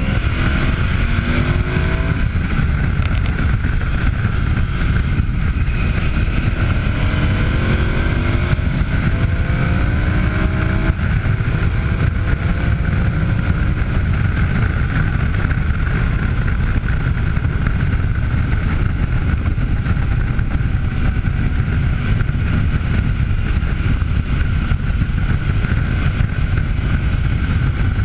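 KTM adventure motorcycle's V-twin engine running at road speed under heavy wind rush on the mic, rising in pitch as it accelerates in the first couple of seconds and again from about eight to eleven seconds in.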